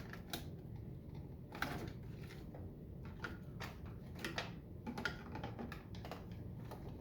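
Light, irregular clicks and taps from handling the plastic casing parts and circuit board of an iHome clock being taken apart.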